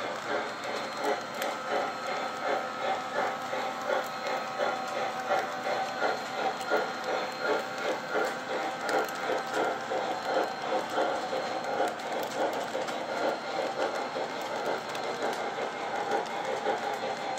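A long train of O scale model boxcars rolling past on the track, the wheels clicking in a steady rhythm of about two beats a second.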